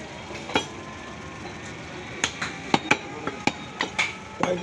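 Butcher's cleaver chopping raw beef on a wooden log chopping block: a series of sharp, irregular chops. There is one early stroke, then the chops come quickly one after another from about two seconds in.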